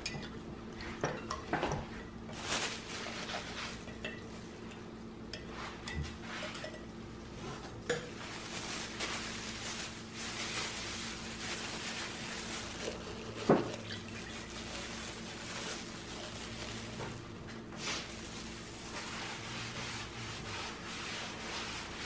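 A plastic stirrer clinking and scraping against a glass jar of dark liquid, then a cloth rag rubbing it across a thin plywood panel in steady strokes. A single sharp knock comes partway through.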